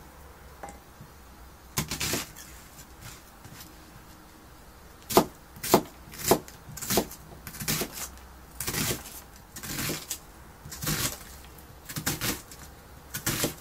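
Kitchen knife slicing an onion into strips on a plastic cutting board, each cut ending in a short knock of the blade on the board. A few strokes early on, then a steady run of cuts about one or two a second from about five seconds in.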